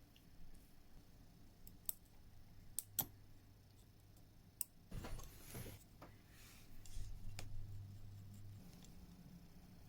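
Hand tools clicking and scraping on a small LED circuit board as corroded LEDs are worked off: a few sharp clicks, then a short rasping noise about halfway through, over a steady low mains hum.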